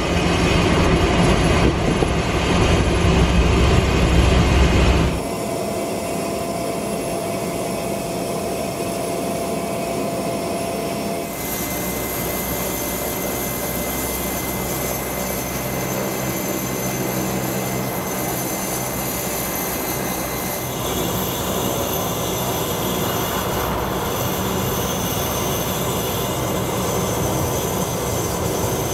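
Single turboprop engine of a Cessna 208B Grand Caravan running steadily, heard from inside the cabin during taxi. The sound is louder and deeper for the first five seconds, then changes abruptly to a thinner drone with a faint steady whine.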